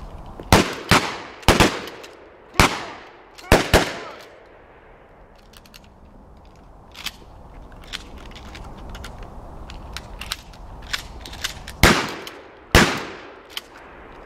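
Shotguns firing on a range in quick pairs from several shooters, about six loud echoing shots in the first four seconds, then fainter pops and clicks, then two more loud shots near the end.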